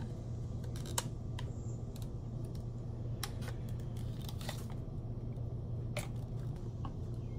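Irregular small clicks and scrapes of a flathead screwdriver prying a brittle plastic bezel off a car speaker, over a steady low hum.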